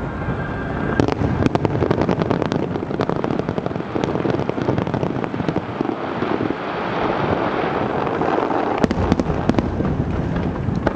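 Fireworks display: a dense, continuous crackle of bursting aerial shells, with sharper bangs about a second in and again near nine seconds in.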